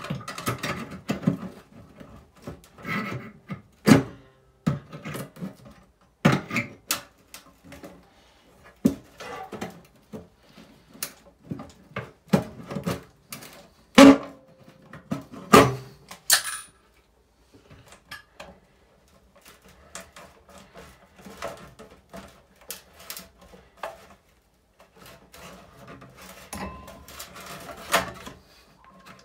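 An old sheet-metal exhaust fan housing being worked loose by hand: irregular sharp metallic clicks, knocks and scraping, with the loudest knocks about four and fourteen seconds in and quieter rubbing later.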